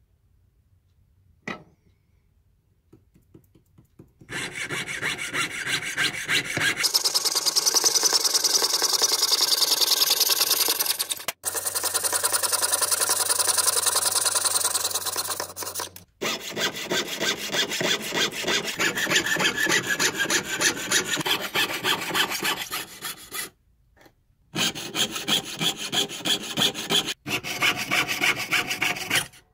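Jeweller's piercing saw cutting a thin silver sheet, with fast, even back-and-forth strokes starting about four seconds in. The strokes break off briefly about three-quarters of the way through, then resume.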